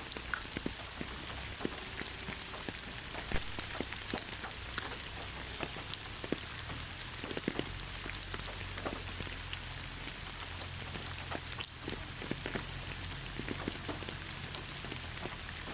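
Steady rainfall with a constant hiss and many irregular drops ticking and splashing on a surface.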